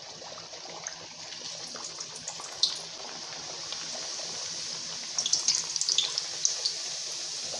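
Hot oil sizzling in a deep-frying pan as pieces of mandazi dough go in. The sizzle grows louder about three seconds in, and a run of sharp crackles and pops follows a little past the middle.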